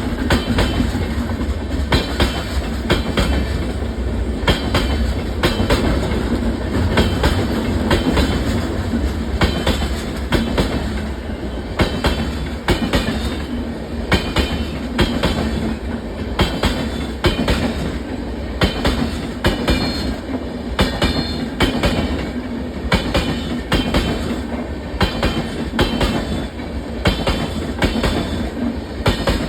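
LHB express coach running at speed on the main line with a flat wheel: over the steady rail noise comes a sharp knock repeating roughly twice a second, the sign of a flat spot worn onto the wheel tread.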